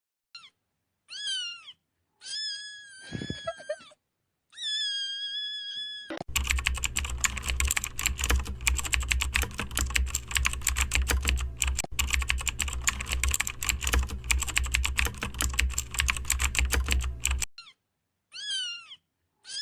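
A cat meowing several times, short calls first, then longer drawn-out ones. This is followed by about eleven seconds of fast, continuous computer-keyboard typing, and one more meow near the end.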